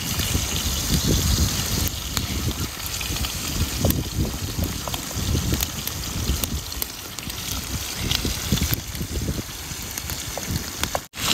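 Wind rushing and gusting against the microphone, with a steady hiss and a few faint ticks.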